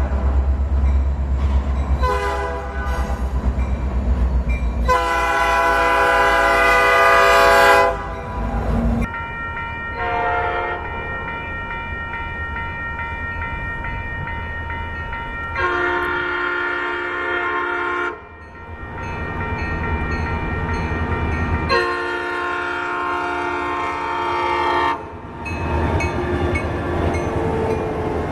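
Nathan AirChime P5 five-chime locomotive air horn sounding a series of blasts, some short and some held for several seconds, loud, with clean breaks between clips. A diesel locomotive's low engine rumble runs under the first few blasts.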